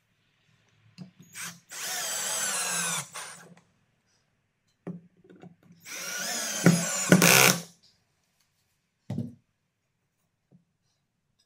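Cordless drill driving wood screws through the sled's thin wooden runners into a wooden block: two runs of the motor, about a second and a half and then about two seconds, with a whine that wavers in pitch as each screw tightens. Short knocks of the drill and wood being handled come before, between and after.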